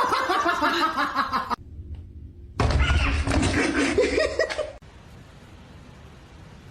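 Two bursts of laughter from people, with a short pause between them, followed by quiet background.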